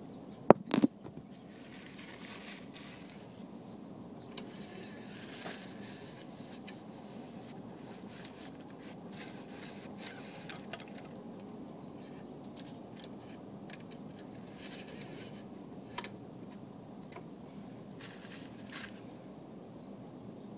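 Muffled rubbing and scraping of a phone being handled with its microphone covered, with two sharp knocks about half a second in and a single click about 16 seconds in.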